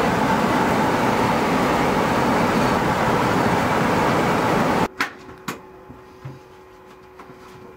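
The twin radial engines of a B-25 Mitchell bomber, heard from inside the fuselage as it rolls down the runway: a loud, steady din. About five seconds in the din cuts off abruptly to a quiet cabin, with a few light knocks and a faint steady hum.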